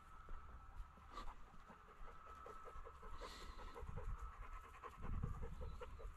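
A German pointer hunting dog panting fast and faintly, about four or five quick breaths a second, growing clearer in the second half, with low dull rumbles near the end.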